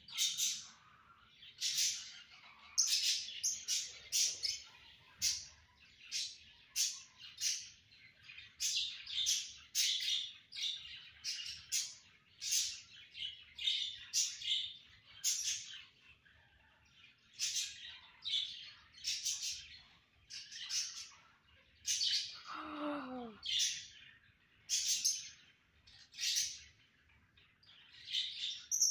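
Pet lovebirds chirping: short, high chirps repeated about once or twice a second. Once, near the end, a lower sound slides down in pitch for about a second.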